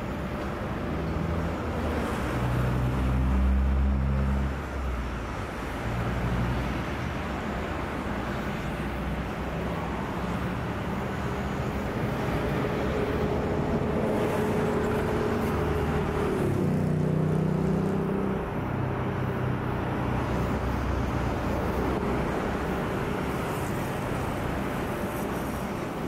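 Steady outdoor background of running motor-vehicle engines and traffic, with low engine tones that swell about 3 to 4 seconds in and shift again about 17 seconds in.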